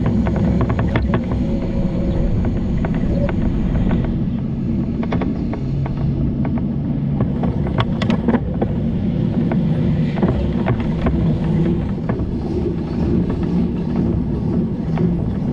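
Steady low rumble of a bicycle moving along a road, with wind on the microphone and frequent small rattling clicks.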